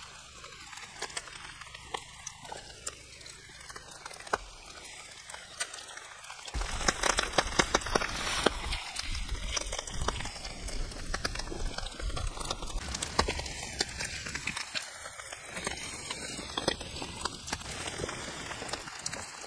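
Wood campfire crackling, with many small sharp pops over a steady background hiss. About six and a half seconds in, the sound becomes louder and fuller.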